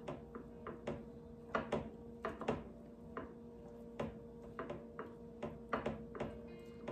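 Scattered light taps and clicks, two or three a second at uneven intervals, as hands handle a floured fish fillet on a plate, over a faint steady hum.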